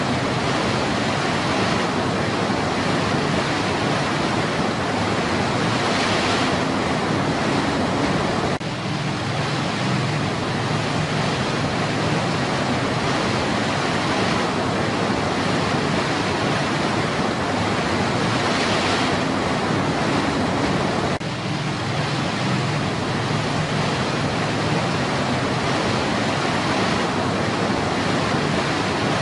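Whitewater rapids rushing over rocks: a steady, even rush of water, dipping briefly twice.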